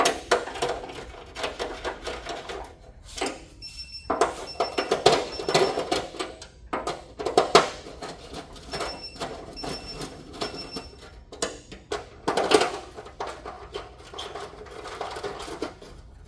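Plastic knocks, rattles and scrapes from the polymer side rails of a GE Panda infant warmer bed being fitted by hand and their fasteners threaded in, coming in irregular clusters.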